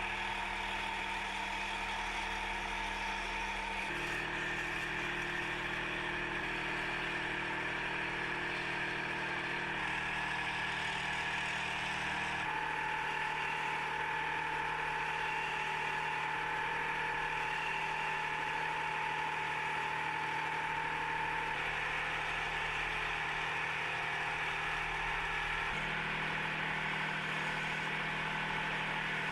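A wood lathe running while a wooden hammer handle is turned: a steady motor hum with the hiss of cutting over it. The hum shifts in pitch abruptly a few times.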